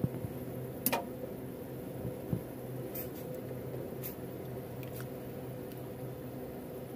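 A spoon stirring thick corn soup in a stainless steel pot, knocking lightly against the pot a few times, the sharpest knock about a second in, over a steady low hum.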